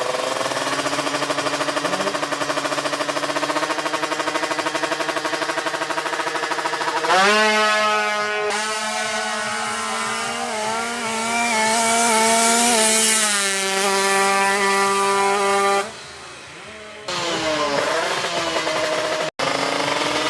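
Tuned 155 cc two-stroke Kawasaki Ninja drag-bike engine held at high revs with a buzzing note. The pitch steps up about seven seconds in and wavers. It drops off sharply for about a second near the end, then revs again.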